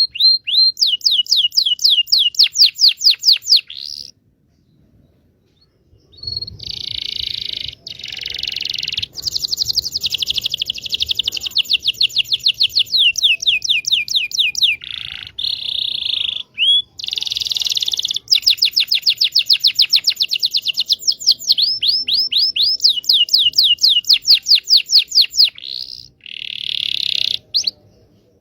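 Canary singing: long, fast trills of quickly repeated high notes in phrases, with a pause of about two seconds some four seconds in.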